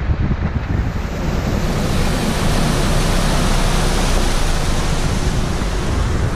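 Rushing water of a rocky mountain stream, a steady hiss that swells up about half a second in, with the 4WD's low rumble underneath.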